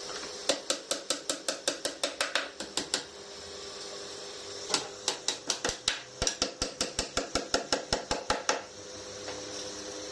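Rapid, even series of sharp strikes from a tool working on the sofa frame, about six a second, in two runs of a few seconds each, over a steady hum.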